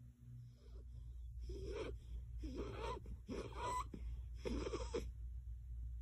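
Sleeping dog breathing noisily, four wheezy breaths about a second apart.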